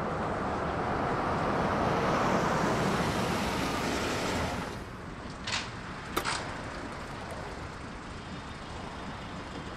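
A small old car drives up and pulls to a stop, its engine and road noise swelling and then dropping away about halfway through. A few short sharp clicks follow soon after, with another near the end.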